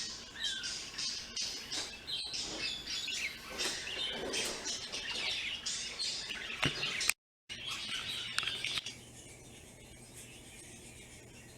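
Pet bird chirping and twittering busily for about the first nine seconds, then falling away to a faint steady hum.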